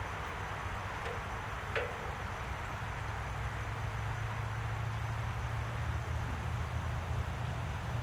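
A steady low motor hum over a noisy background, getting stronger about halfway through, with a single click near two seconds in.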